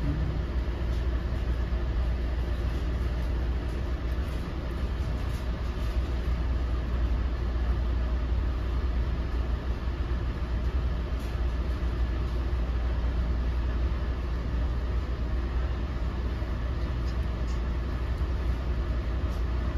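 Steady low rumble inside an NJ Transit Multilevel passenger coach running at speed, with a few faint ticks over it.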